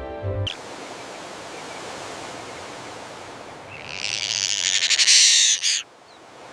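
Wildlife ambience with a steady hiss. About four seconds in, a loud, high chirring animal call runs for about two seconds and cuts off sharply. Soft music ends just after the start.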